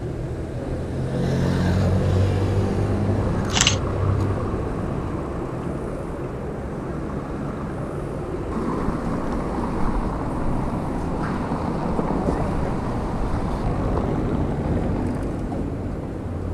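City street traffic: vehicle engines running with a steady low hum, and a sharp click about three and a half seconds in.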